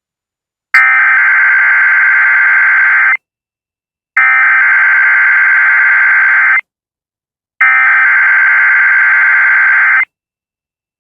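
NOAA Weather Radio SAME (Specific Area Message Encoding) header: three identical bursts of shrill, buzzing digital data tone, each about two and a half seconds long with a second of silence between them. It is the coded alert header that opens a weekly test and triggers weather-radio receivers.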